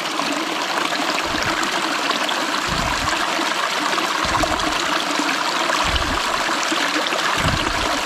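Small rocky stream rushing steadily over stones while a water bottle is held under the current to fill, with a few brief low bumps.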